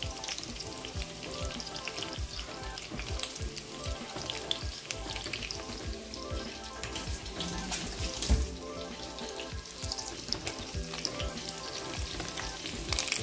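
Sliced pork, garlic, ginger and onions sizzling and crackling in rendered pork fat in a pan, with a steady spatter of pops; music plays underneath.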